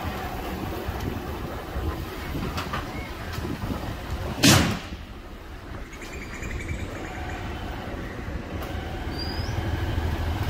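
Riding noise from a motorcycle moving slowly through city street traffic: steady engine, tyre and wind noise. There is a sharp, loud thump about four and a half seconds in, and a short rising squeak near the end.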